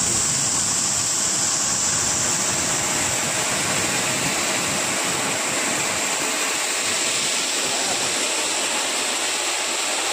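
High-pressure water jet from an HTP power sprayer's lance nozzle, a loud, steady hiss of spray striking a concrete floor, with a low rumble under it that thins out near the end.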